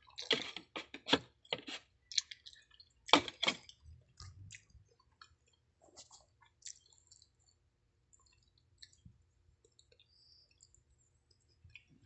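Eating sounds: a metal spoon clicking and scraping against a plastic rice container and a small bowl, several sharp clicks in the first few seconds, then sparse faint ticks, with chewing of rice.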